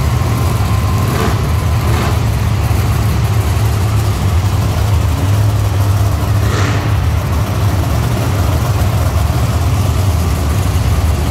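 Monster truck engines running, a loud, deep, steady rumble with a few brief sharp noises over it.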